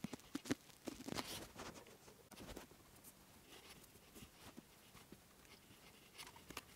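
Faint clicks and rustling of hands handling thin wires and small plastic wire connectors from a car's wiring harness. A flurry of sharp clicks comes in the first couple of seconds, then only a few scattered light ticks.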